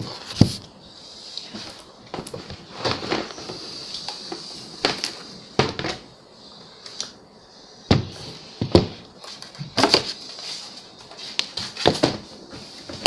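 Irregular knocks, clicks and rustling from parts and the phone being handled and moved about, over a faint steady hiss.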